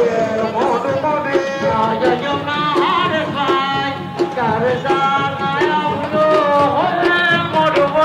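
Music: a singer's long held and sliding notes over hand-drum strikes, carried over a loudspeaker.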